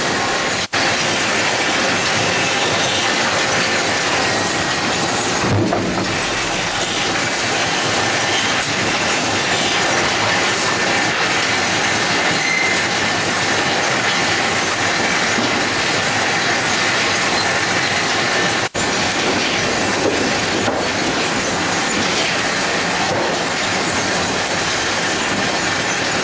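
Sawmill chain conveyors and transfer decks running, a steady loud metallic clatter and rumble as sawn boards are carried along. It cuts out for an instant twice: about a second in and again about two-thirds of the way through.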